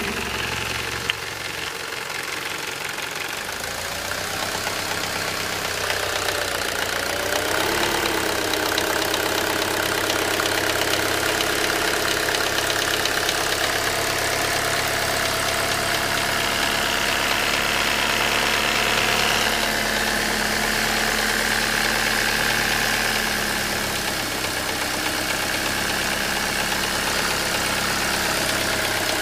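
Mercedes-Benz W124 200D's four-cylinder diesel engine idling with a rattle, which the owner says is worst when the engine is cold and gone once it is warm. Its note shifts briefly about seven seconds in.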